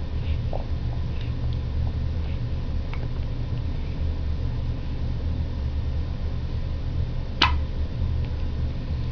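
A steady low hum with one sharp, short hiccup about seven seconds in, and a few fainter ticks in the first three seconds.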